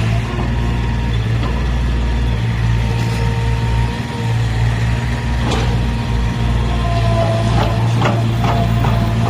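A heavy machine's engine runs steadily with a deep hum, and several sharp knocks or clanks come in the second half.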